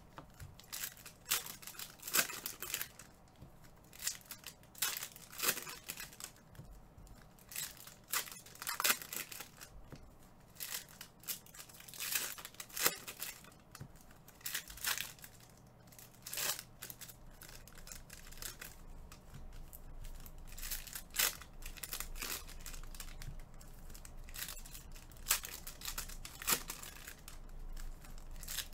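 Plastic packaging crinkling and tearing in short, irregular bursts, as wrappers are handled and torn by hand.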